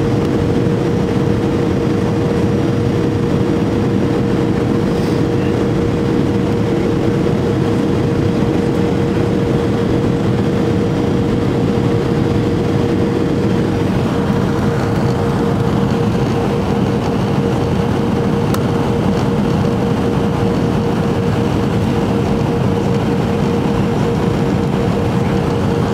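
Boeing 737-300 cabin noise heard from a window seat over the wing: a steady rush of airflow with the drone of the CFM56-3 engines and a constant hum tone, as the plane flies its approach. The hiss grows a little brighter about halfway through.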